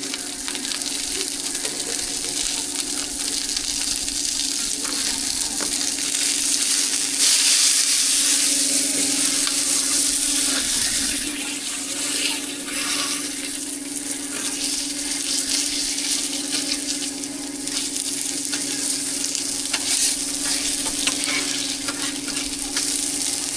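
Food sizzling as it fries, a steady hiss that grows louder for a few seconds about a third of the way in, over a constant low hum.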